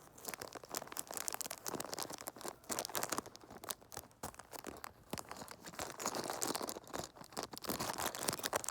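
Lego set packaging being torn open and crinkled by hand, a dense irregular crackling and rustling with small clicks.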